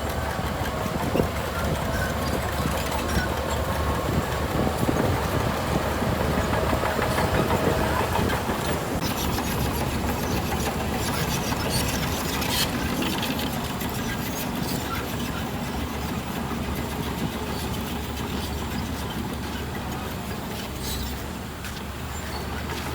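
Heavy diesel earthmoving machinery running steadily with a low rumble, with scattered metallic clanks.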